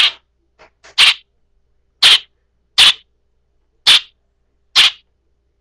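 A young bird making harsh, scratchy rasping calls: short sharp rasps repeated about once a second, six loud ones with two faint ones between the first and second.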